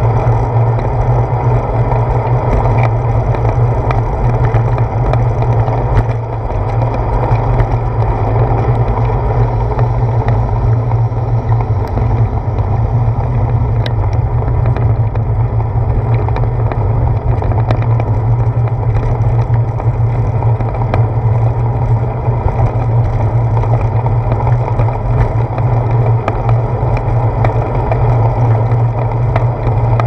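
Steady wind rush and tyre rumble from a bicycle rolling along a paved path, picked up by a handlebar-mounted GoPro, with a few faint ticks from the bike.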